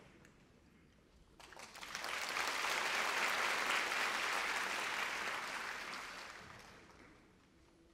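Audience applauding. It starts about a second and a half in, swells, then dies away near the end.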